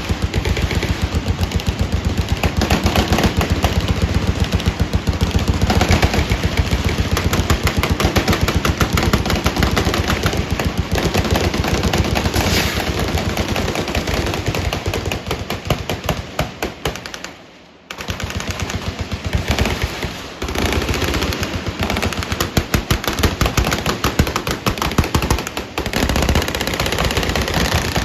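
Automatic weapons firing continuously, with long, rapid bursts overlapping one another. About two-thirds of the way through the firing tapers off into a brief lull, then starts again.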